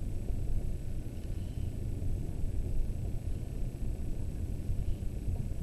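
Steady low rumble, with faint light scratches of a ballpoint pen drawing lines on a paper worksheet.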